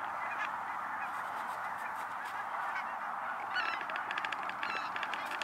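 A large flock of wild geese flying overhead, many honks blending into a steady chorus, with a few clearer, nearer calls toward the end.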